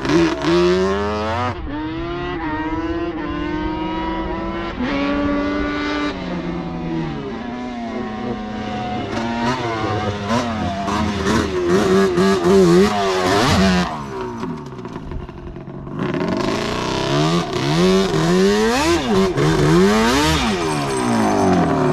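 Yamaha Banshee quads' twin-cylinder two-stroke engines revving hard and falling off again and again as they climb the sand dunes, the pitch rising and dropping. They go quieter for a couple of seconds about two-thirds of the way through.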